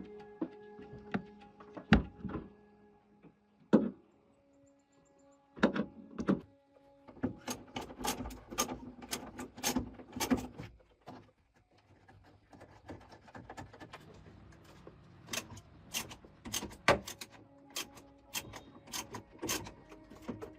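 Repeated sharp clicks and knocks from hand tools and engine parts being handled, in quick clusters, over quiet background music.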